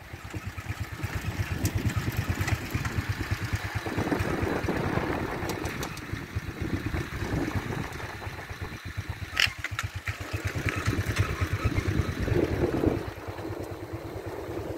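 Vehicle engine running as it travels along a mountain road, heard from on board: a steady low pulsing that swells in stretches and eases back about thirteen seconds in. A brief sharp high sound comes about nine and a half seconds in.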